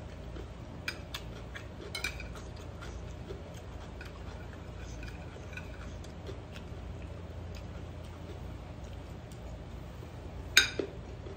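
Metal spoon clinking and scraping on a ceramic plate while eating: a few light clinks in the first seconds and one louder clink near the end, over a steady low hum.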